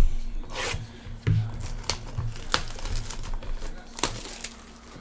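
Plastic wrapping on a box of trading cards being crinkled and torn open, with irregular sharp clicks and rustles.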